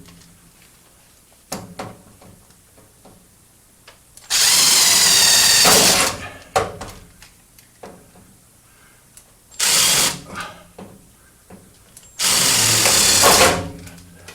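Right-angle drill boring 3/16-inch holes in ductwork, running in three bursts with the middle one brief, and small clicks and knocks of handling in between.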